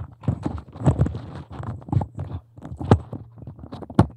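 Chairs and shuffling as a roomful of people stand up from their seats: a run of irregular knocks, bumps and rustles, the sharpest knock about four seconds in.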